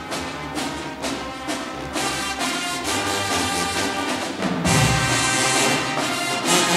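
High school marching band playing: steady drum strokes, then the brass section comes in with held chords, and a heavy low drum hit about two-thirds through brings the full band in louder.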